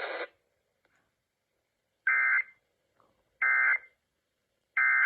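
Emergency Alert System SAME data bursts relayed over broadcast radio: three short warbling digital tone bursts, each under half a second and about a second and a third apart. This is the End of Message code that closes the Required Monthly Test.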